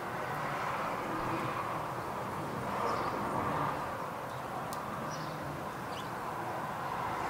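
Steady outdoor background rush with a few faint, short high chirps, like small birds, and a single light click a little before the 5-second mark.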